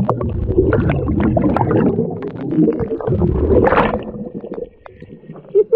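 Muffled underwater rumble and gurgling of a scuba diver's exhaled bubbles and water moving around the camera housing, full of small clicks. Close to four seconds in there is a brief brighter splash as the camera comes up to the surface, and the sound then drops quieter.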